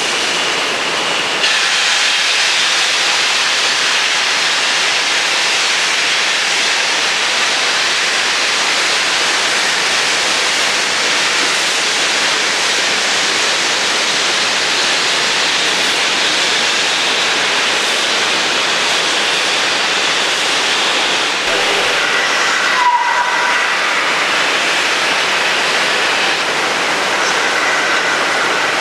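Steam locomotive pulling away with a train, steam hissing loudly and steadily from its open cylinder drain cocks, over the rush of a nearby weir. After a short break near the end, a steady rush of water carries on.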